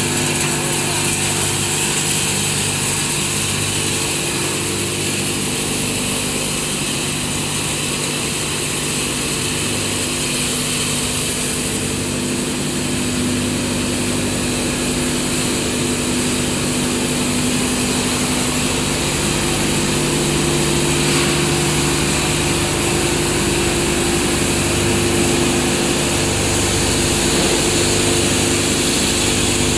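Plastic recycling milling machine (PVC pulveriser) with alloy steel rotor blades running, a steady mechanical hum of several low tones under a high hiss.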